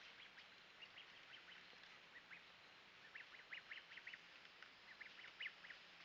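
Faint short, quick chirps in clusters of several a second, over a quiet forest hiss.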